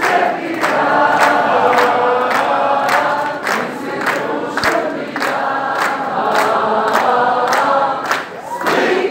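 A large crowd singing a song together in chorus, with many people clapping in time, a few claps a second. The singing drops briefly near the end, then picks up again.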